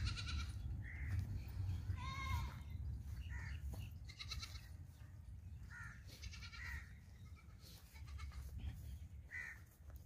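Several short bleats from Beetal goats in a pen, spaced a couple of seconds apart, over a low steady rumble.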